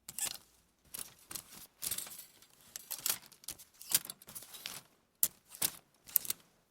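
Clothes hangers being moved and handled, with irregular clicks, clatters and rattles as they knock together and scrape.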